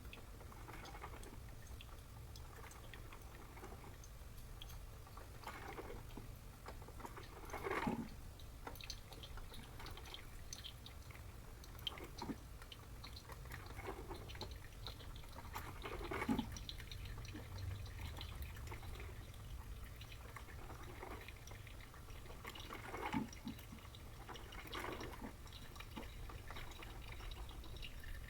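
Panasonic NC-A58 drip coffee maker brewing: a steady low hum runs throughout, with scattered drips and gurgles of water every few seconds. The hum is the vibration-like abnormal buzz the machine developed, whose cause Panasonic's warranty service could not identify.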